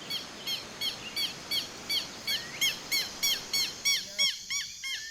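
Tropical forest ambience: an animal calling in a fast, steady series of short chirps, about three a second, over a steady hiss. About halfway through there is one longer note that rises and falls, and near the end a second, lower caller joins in.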